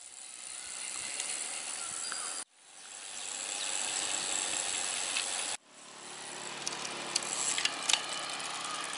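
Steady rushing noise of riding folding bicycles on a paved road, in three short stretches that stop abruptly and fade back in, with a few sharp clicks near the end.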